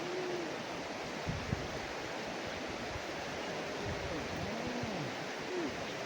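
Steady rush of a flowing river's current, with a brief knock about one and a half seconds in and a few faint short tones.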